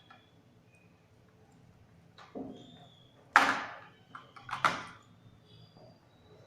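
Earphone packaging being handled: a few sharp clicks and short sliding scrapes. The loudest comes a little over three seconds in and another about a second later.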